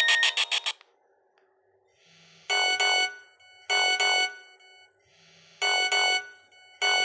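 Nokia 1110i mobile phone ringtone from the phone's speaker: a fast beeping melody ends under a second in. After a short pause, a different ringtone starts, chiming tones in pairs, two pairs about a second apart, then a pause and two pairs again, like a ring-ring telephone cadence.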